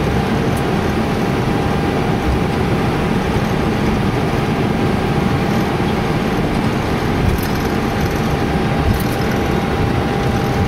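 Steady rumble and hiss inside an Airbus A321 cockpit as the airliner taxis, with a thin steady whine over it.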